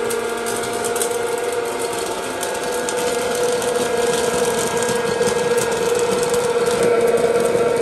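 Hot-air popcorn popper running: its fan motor hums with a steady whine over a rush of air, while kernels pop in quick scattered clicks and popped corn tumbles out of the chute. It grows a little louder near the end.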